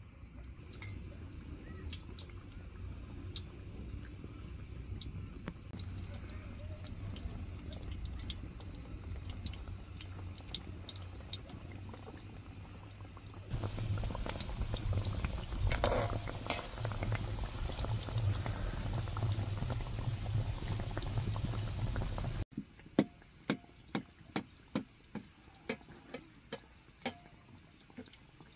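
Rounds of dough deep-frying in a wide pan of hot oil over a wood fire: steady sizzling and bubbling with scattered crackles, growing louder and hissier about halfway through. After a sudden cut near the end, the sizzle drops away and a run of about ten sharp taps follows, fading as they go.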